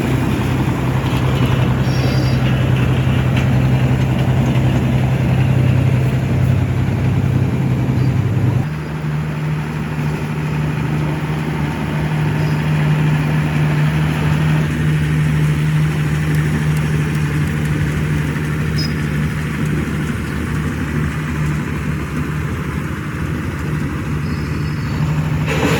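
A heavy machine's engine running steadily with a deep hum. About nine seconds in it changes abruptly to a slightly higher, steadier note.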